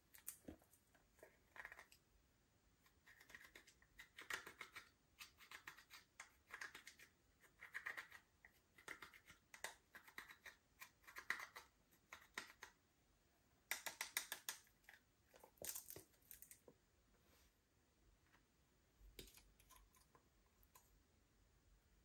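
Slime being squished and worked by hand, giving bursts of small crackling clicks and pops. The clicking stops about three-quarters of the way through, leaving only a few faint clicks.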